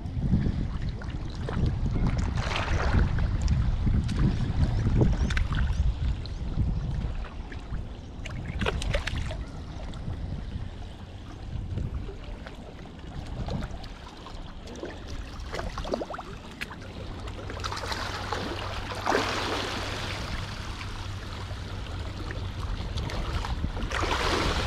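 Small waves lapping and trickling against a stone seawall, with a low rumble on the microphone for the first few seconds and scattered light knocks. Around two thirds of the way through, and again near the end, the water sound swells into a louder wash.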